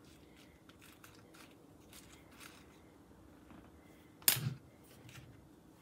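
Quiet crafting handling: faint ticks and rustles of tissue paper and tools being worked, with one sharp click about four seconds in.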